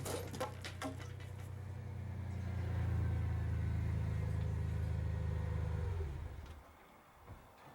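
Vehicle engine, likely the old Ford, running steadily and growing louder about two to three seconds in, then stopping about six seconds in. A few sharp cracks sound in the first second.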